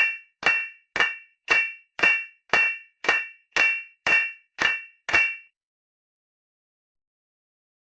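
Hammer striking steel in sword (katana) forging: eleven evenly spaced ringing metallic blows, about two a second, each ringing briefly. They stop a little past halfway.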